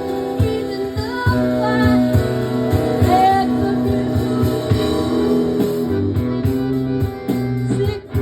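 Live acoustic music: plucked strings with a melodic line over them, possibly wordless singing. It briefly drops away just before the end.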